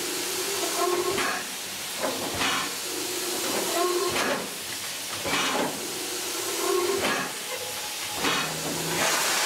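Steam locomotive chuffing slowly: strong surges of steam hiss about every one and a half seconds over a steady background hiss.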